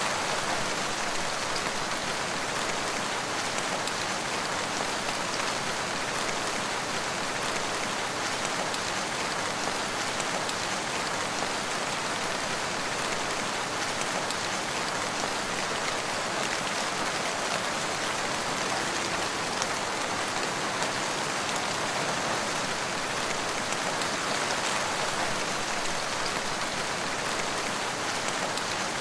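Steady rain falling, an even hiss of many drops that keeps up without let-up.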